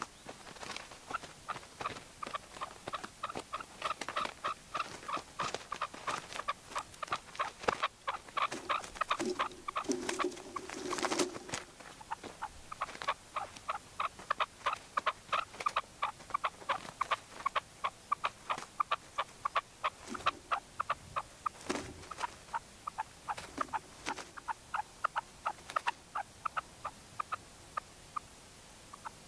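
Red-legged partridges calling: a long, steady run of short clucking notes, a few a second, with a louder burst of calling about ten seconds in.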